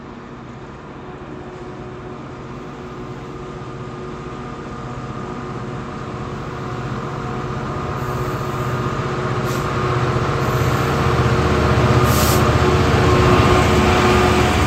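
Class 66 diesel-electric locomotive hauling a freight train, its engine running steadily as it approaches and growing louder until it passes near the end. The wagons' wheels then rumble by on the track.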